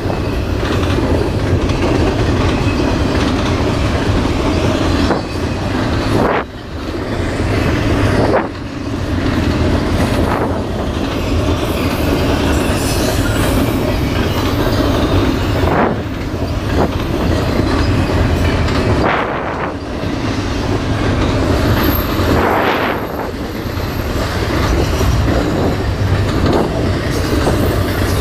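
Double-stack intermodal freight train's container well cars rolling past close by: a steady rumble and clatter of steel wheels on rail, with brief dips and swells as the cars go by. A thin high wheel squeal comes in for a few seconds near the end.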